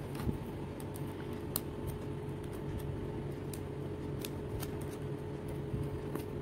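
A knife blade scraping around the edge of a cupcake inside a fluted metal baking tin, with scattered small metal clicks and taps, to loosen it for unmoulding. A steady low hum runs underneath.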